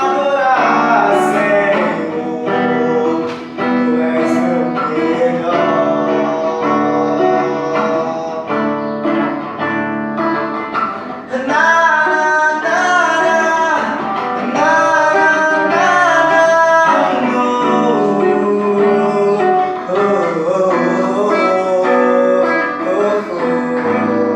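A man singing a Brazilian gospel song over strummed acoustic guitar.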